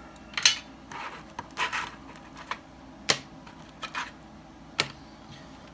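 Small objects being handled and set down on a workbench: irregular clicks and taps with light rustling, three sharp clicks standing out.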